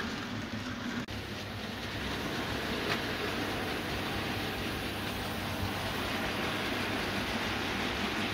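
OO gauge model train running on the layout's track: a steady rumble of wheels on the rails and the motor, with a momentary dropout about a second in.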